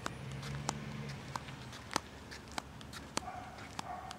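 Quiet outdoor background with faint, sharp clicks at an even walking pace, about one every two-thirds of a second: the footsteps of someone walking with the camera. A faint low hum sounds during the first second.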